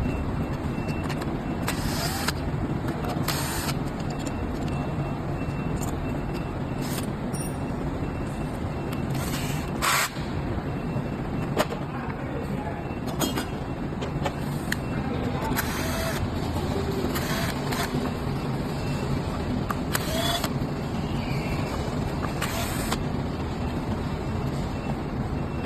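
Steady low rumble of workshop background noise, with about a dozen sharp clicks and knocks at irregular moments from the electric scooter and its parts being handled.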